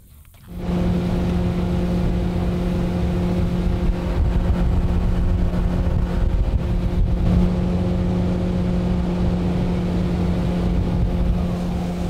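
Mercury jet outboard on a jet boat running steadily under way, with an even, unchanging engine pitch. It comes in abruptly about half a second in.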